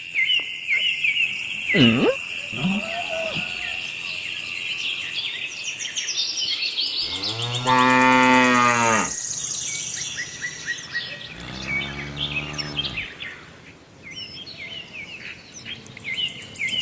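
A cow mooing twice, two long low calls about seven and twelve seconds in, the first louder, over birds chirping throughout.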